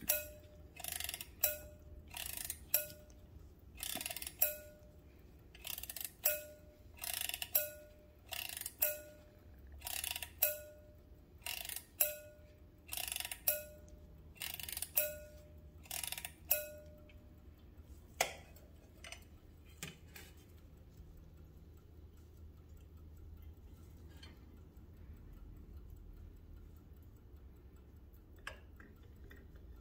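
Small drum-case clock striking: a long run of sharp metallic strikes, about two a second, each ringing briefly at the same pitch. The strikes stop and a few soft handling knocks follow.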